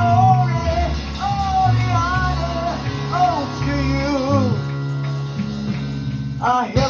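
Music with a voice singing a wavering melody over a sustained, changing bass line. A louder voice cuts in near the end.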